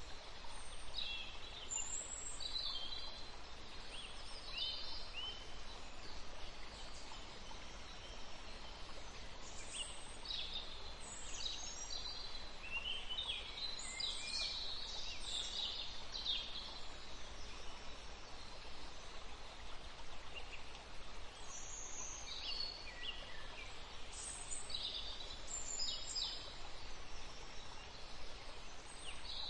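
Birds calling in bursts of short, high chirps and sweeping notes, busiest in the middle and again near the end, over a steady soft hiss of nature ambience.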